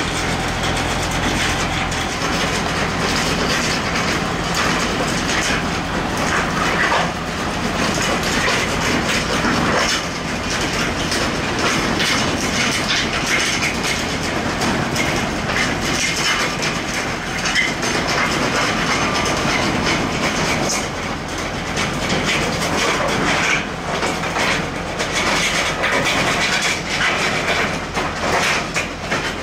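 Kubota L4701 tractor's diesel engine running while the steel carport frame carried on its forks rattles and clanks continuously as it is moved. The engine's low steady note is plain for the first couple of seconds, then the metal rattle covers it.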